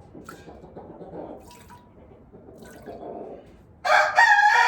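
A few squirts of milk from a goat's teat hitting a milking pot during hand-milking, then a rooster crows loudly about four seconds in.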